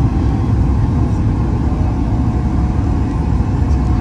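Steady low rumble inside the cabin of a Boeing 737 MAX 8-200 in flight: engine and airflow noise.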